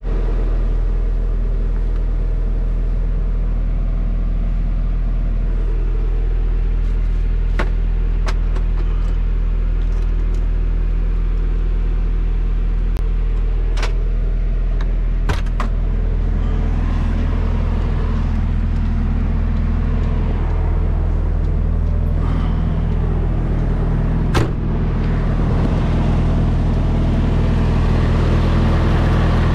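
MAN truck's diesel engine idling steadily, with a low hum throughout. Several sharp clicks come in the first half, and a thump comes near the end, after which the idle sounds louder and fuller.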